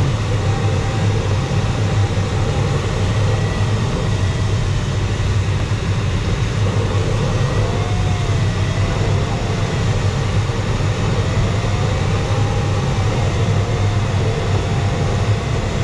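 Steady rushing wind noise of air flowing over the closed canopy of a 1977 Glaser-Dirks DG-200 fiberglass sailplane in gliding flight, with no engine. Over it a thin electronic tone, typical of a glider's audio variometer, wavers slowly up and down in pitch as the lift changes.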